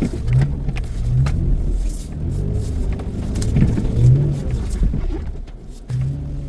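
Toyota off-road truck's engine revving up and down in repeated bursts, with scattered sharp knocks and clunks. The revs settle to a steadier note near the end.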